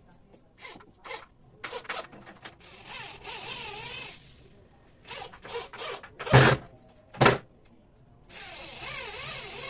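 Cordless drill running into wood: a few short trigger bursts, then longer runs about three seconds in and again near the end, the motor's pitch wavering under load. Two loud, sharp, short sounds come a little after six and seven seconds.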